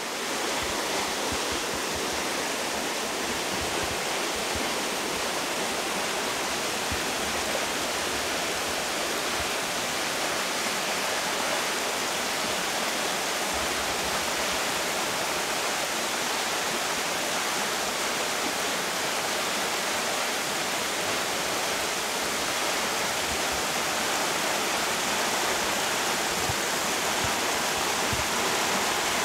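Steady rush of falling and flowing water from a waterfall and the rocky creek at its base: an even, unbroken hiss.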